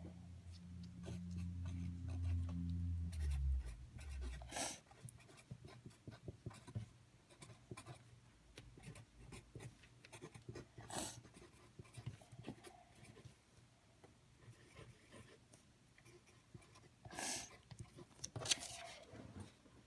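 Light pink slime being worked by hand: a steady stream of small sticky crackles and clicks, with a few louder squishes about 5, 11, 17 and 18 seconds in. A low hum sits under the first few seconds.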